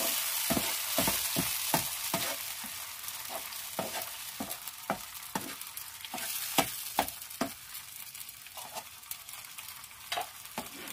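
Blended tomato and onion paste sizzling in hot oil in a non-stick frying pan, while a metal spoon stirs and scrapes against the pan in irregular clicks. The sizzle gradually quietens as the paste cooks.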